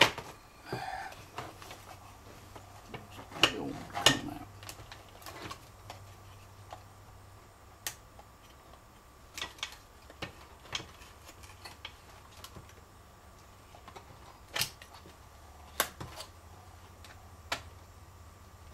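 Small plastic and metal parts of a truck instrument cluster clicking and snapping as gauges and their clips are worked into place: a dozen or so sharp, scattered clicks at uneven intervals, over a faint steady hum.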